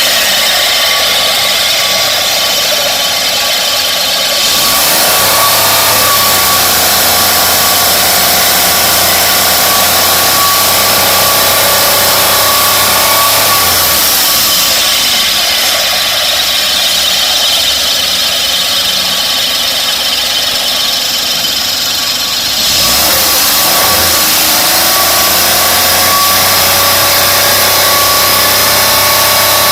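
Air conditioner compressor running with an abnormal noise: a steady mechanical drone with whining tones. The sound changes about 5 s in, again around 14 s and 23 s, with a brief sliding pitch at the first and last change.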